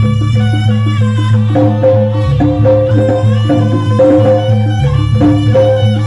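Jaranan buto accompaniment music: Javanese gamelan-style percussion with drums striking a steady rhythm over a sustained low tone, and a melodic line stepping up and down above it.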